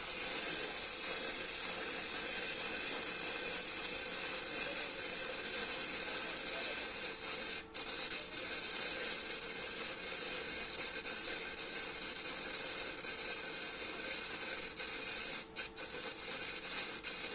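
Electric arc welding on a pipe joint in the 6G position: a steady crackling hiss from the arc, cutting out for a moment a few times.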